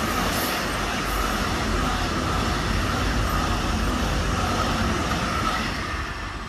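Freight train's container wagons rolling past with steady wheel-on-rail noise, fading near the end as the last wagons go by.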